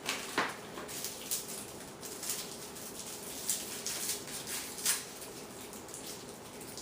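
Plastic lollipop wrapper being torn open by hand, giving scattered short crinkles and crackles over a faint steady hiss.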